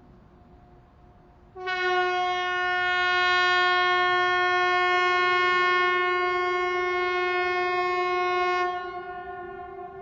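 Swedish air raid siren sounding one steady, hoarse-edged tone that starts abruptly about a second and a half in and holds at a single pitch for about seven seconds, then drops sharply to a fainter tone that lingers.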